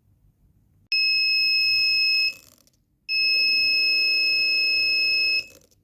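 A buzzer sounding a steady high-pitched tone twice. The first tone lasts about a second and a half. After a short gap the second lasts about two seconds.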